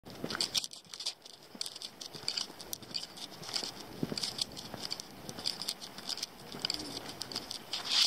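Footsteps crunching on dry fallen leaves and grit along a forest dirt path, in irregular crackly clusters at a slow walking pace.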